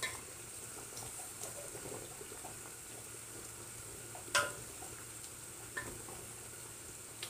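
Wooden spoon stirring chicken and potatoes in a large aluminium pot of simmering broth, soft scrapes over a faint steady bubbling hiss. A sharp knock about four and a half seconds in.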